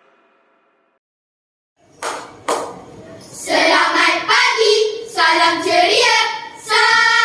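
A group of schoolchildren performing a rhythmic choral recitation (bicara berirama) in unison. Two sharp hand claps come about two seconds in, then the voices chant in phrases, drawn out and half-sung. Electronic music fades out in the first second.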